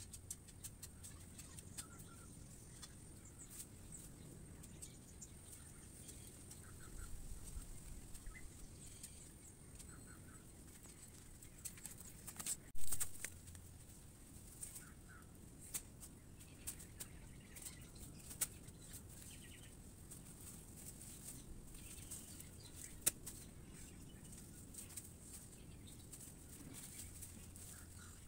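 Rustling and scattered clicks of dry leaves as a person handles and gathers them, with short bird calls now and then. A single sharp knock about halfway through is the loudest sound.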